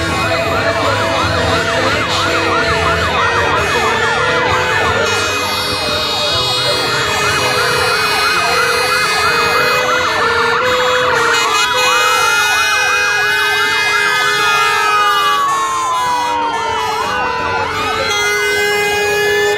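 Several fire engine sirens sounding at once, overlapping: a fast yelp for the first half, changing about eleven seconds in to slow rising and falling wails, over a lower two-tone that alternates about once a second.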